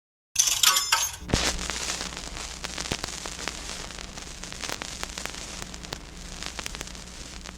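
A steady crackling with scattered sharp pops over a low hum. It starts with a brief, higher-pitched burst and cuts off suddenly.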